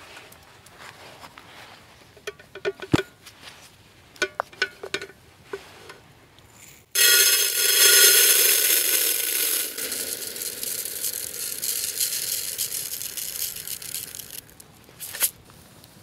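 A few light clinks and knocks of containers being handled, then water poured from a metal container into a metal billy pot: a loud steady splashing hiss that starts suddenly about seven seconds in and runs for about seven seconds. Near the end comes a brief rattle as rice is tipped into the pot.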